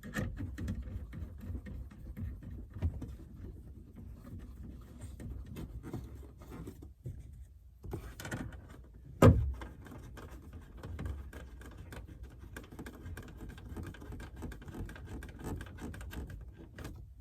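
Small clicks and handling knocks as the taillight's mounting nuts are put back on and tightened, with one sharp, loud knock about nine seconds in.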